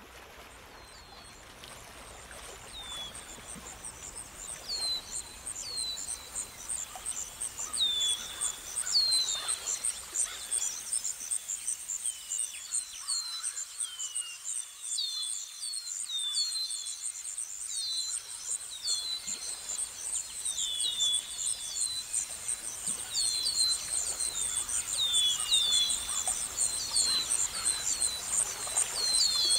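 Nature ambience of insects trilling steadily in a fast, even pulse, with birds giving many short falling chirps. It fades in over the first few seconds.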